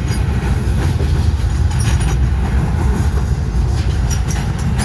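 Intermodal freight train cars rolling past close by as the train slows, a steady heavy rumble with scattered clicks from the wheels.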